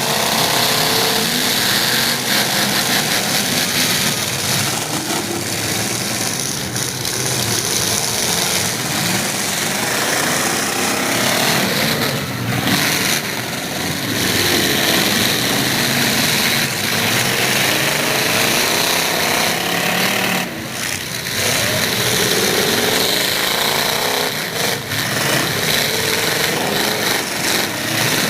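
Demolition derby trucks' engines running loudly and revving up and down, with a rough, chattering tone.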